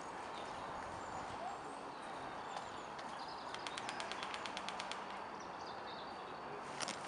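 A short full-auto burst of airsoft gunfire in the distance: a rapid run of sharp clicks, about eleven a second, lasting a second or so about halfway through, over a steady outdoor hiss. A couple of single sharp cracks come near the end.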